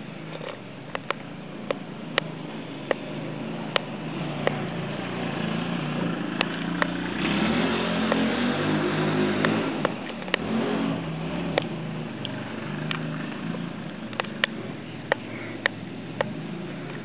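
Sport quad ATV engine running while ridden, revving up louder and higher about seven seconds in, then easing back down a few seconds later. Short sharp clicks recur every second or so.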